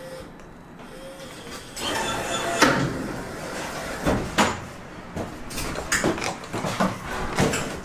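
A crane game's metal claw gripping and lifting a clear plastic prize box out of a pile of boxes. Over a steady mechanical whir, the plastic boxes clack and knock against each other in a run of sharp knocks, starting about two and a half seconds in.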